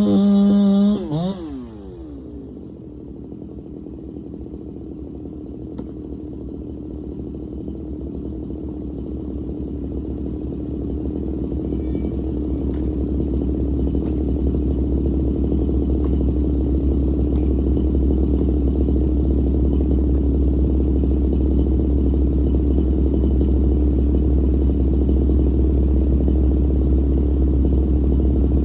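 A chainsaw revs and falls away, stopping about two seconds in. After that a diesel engine runs with some clatter, growing steadily louder for about twelve seconds and then holding steady.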